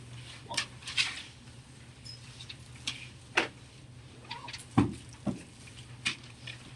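Classroom handling noise: papers rustling and small scattered clicks and knocks, with one louder thump about five seconds in, over a steady low hum.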